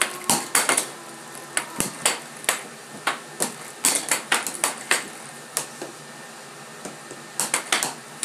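Air hockey puck clacking against the plastic mallets and the table's rails in a fast rally: sharp, irregular knocks, several a second, with a lull of about two seconds near the end before a quick flurry of hits.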